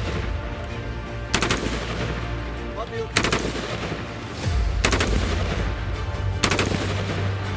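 Colt M4 carbine firing 5.56×45 mm NATO in short bursts of a few rounds each: four bursts, roughly one and a half to two seconds apart.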